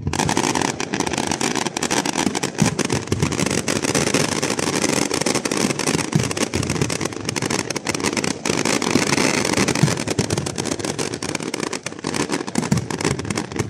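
Fireworks display: many shells bursting in quick succession, a dense, unbroken run of loud booms and crackling.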